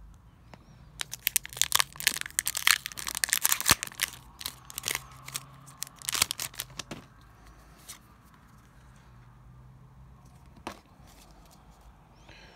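Pokémon booster pack's foil wrapper being torn open and crinkled: a dense run of crackling for about six seconds, then softer rustling with one sharp click near the end.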